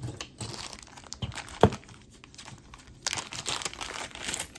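Crinkling of packaging being handled while unboxing jewelry, with a single sharp click about one and a half seconds in and a denser stretch of crinkling near the end.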